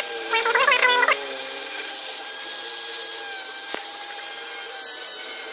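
Small electric rotary grinder with a long burr working inside the aluminium intake port of a motorcycle cylinder head, porting it larger. For the first second the whine wavers and breaks up as the burr bites, then it settles into a steady whine under a rasping grind, with a single sharp click about two-thirds of the way in.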